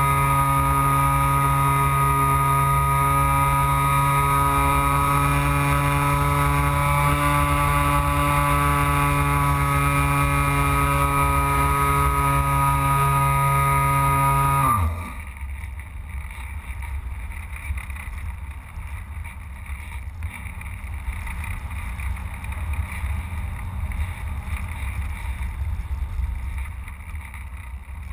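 The electric motor and propeller of a Carl Goldberg Electra RC sailplane run at a steady whine, then cut off about halfway through and spin down quickly. After that only wind buffets the camera mounted on the plane as it glides.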